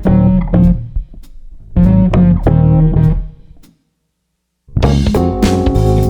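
Background music with plucked guitar and bass, cutting off for about a second near the middle before starting again.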